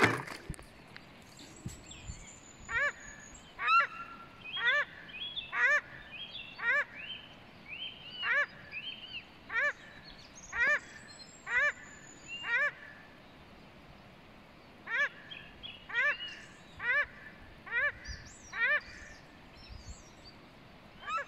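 A pair of paradise shelducks calling on the river: short, rising, honking calls repeated about once a second, with a brief pause just past halfway and some thinner, higher calls mixed in. A single sharp knock right at the start.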